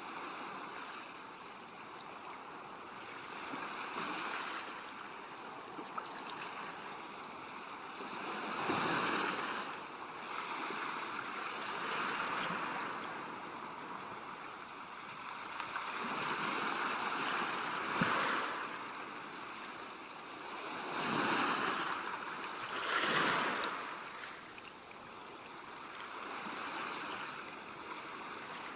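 Ocean surf: waves breaking and washing in, the rush of water swelling and fading every few seconds, with the strongest surges about nine, eighteen and twenty-three seconds in.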